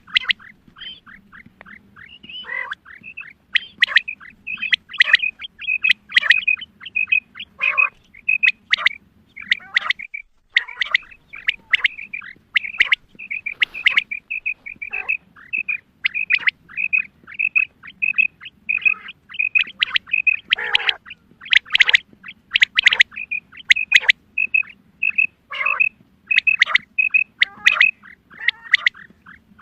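Female quail calling: quick runs of short, high chirps, several a second, broken by louder, harsher notes that slide downward, with a brief pause about ten seconds in. This is a call that hunters play to lure quail.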